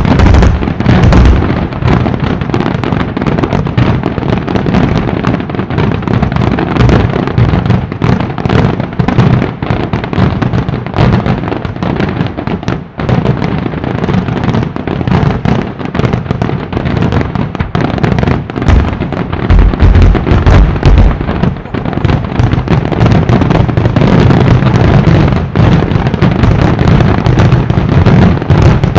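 Fireworks display going off in a dense, continuous barrage of bangs, many shells bursting in quick succession, with heavy deep booms about twenty seconds in.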